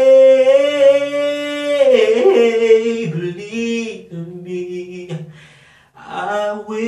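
A man singing unaccompanied in a small tiled bathroom, the room's echo on his voice. He holds one long note for about two seconds, then sings more softly and lower, fading out about six seconds in before picking up again.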